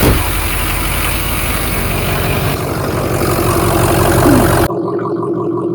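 Ford 6.0 Powerstroke V8 turbo-diesel idling steadily, running on newly installed batteries. About three-quarters of the way through the sound changes abruptly, leaving a steadier, duller hum.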